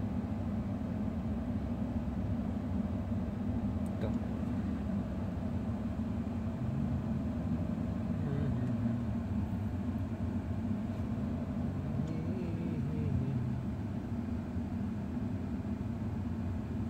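Steady low hum of a Mercedes S500 (222-series S-Class) running at idle, heard from inside the cabin.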